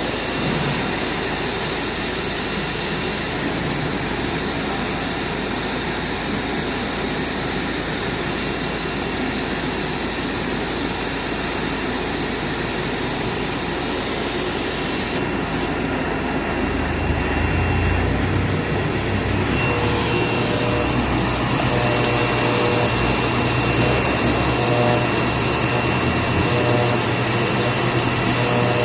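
CNC router running: a steady whirring machine noise that changes about halfway through to a deeper hum with a thin, steady high whine.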